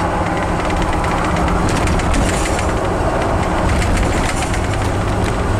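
Cab noise of a Class A motorhome cruising at highway speed: a steady low engine and road rumble with a constant hum, and many small rattles and clicks from the coach throughout.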